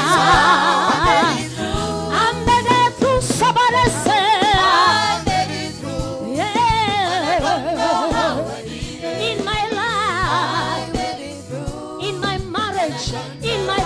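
Gospel worship music: voices singing wordless runs and held notes with vibrato over a steady instrumental accompaniment.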